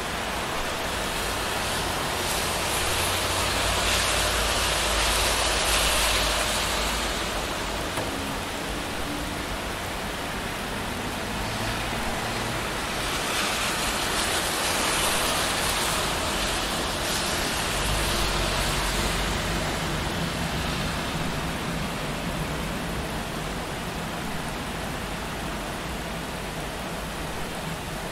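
Steady rain with traffic on a wet city street: a constant hiss, and passing cars whose tyre swish and low engine rumble swell up and fade away twice.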